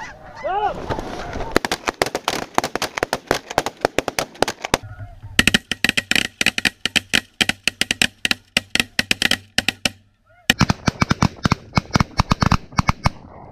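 A large flock of snow geese calling, a dense, rapid clamour of short honks with no let-up, broken off abruptly twice.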